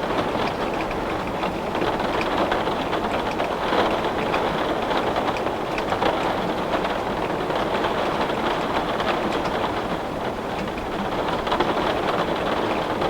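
Heavy rain pattering steadily on window glass, a dense even hiss of many small drop impacts.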